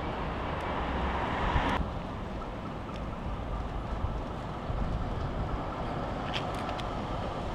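Outdoor trackside ambience: wind buffeting the microphone over a low, steady background rumble. A brighter hiss cuts off abruptly about two seconds in, and a few faint ticks come near the end.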